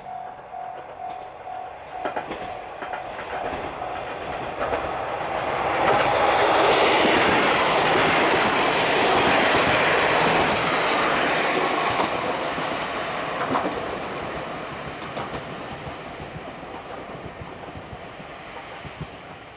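A diesel train on the Ibusuki Makurazaki Line approaches, passes close by with its wheels clacking over the rail joints, and fades away. A level-crossing warning bell rings faintly at the start and again near the end.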